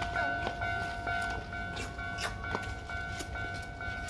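Japanese railway level-crossing alarm ringing in a steady repeating two-tone chime, about two strokes a second, which signals that the crossing is closed for a train. A few sharp clicks sound over it.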